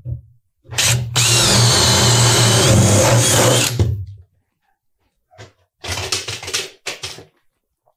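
Cordless drill turning a 7/8-inch spade bit on a long extension through a wooden ceiling joist. It runs steadily with a whine for about three seconds and then stops, followed by a few short knocks and rattles.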